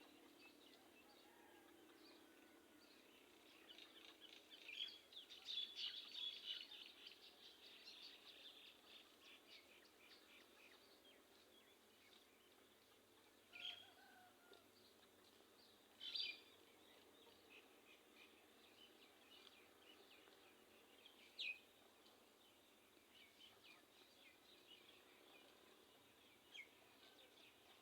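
Faint bird chirping: a quick run of many high chirps a few seconds in, then a few single calls spaced several seconds apart.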